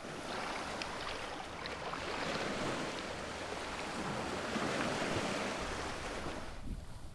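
Small waves washing against a rocky shore, a steady rushing hiss with a few faint splashes, coming up at the start and dying away shortly before the end.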